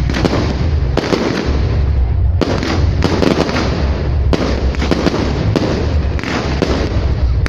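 Fireworks display going off in a dense, continuous barrage: bang after bang with crackling in between.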